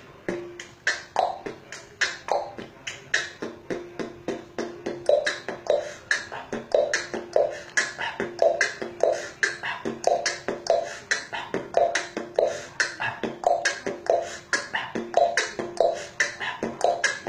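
Human beatboxing: a quick, steady beat of mouth-made clicks, kicks and snares, with a steady low hum held underneath.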